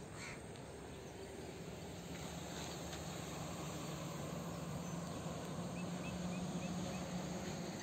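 Outdoor riverside ambience: a steady low hum under a faint hiss, growing slightly louder, and near the end a bird gives a quick series of about five short rising chirps.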